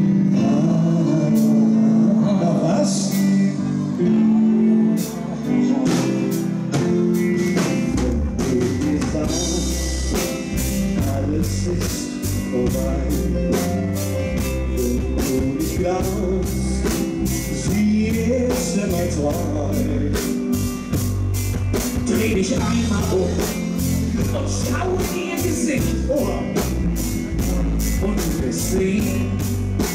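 Live band music with singing into microphones, electric guitar and bass. Held chords open it, then a drum kit and bass come in with a steady beat about eight seconds in.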